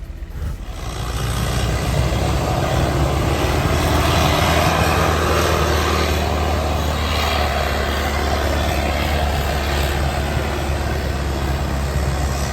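Vehicle engine running, with a steady low drone and a rushing road or wind noise that swells about a second in and then holds.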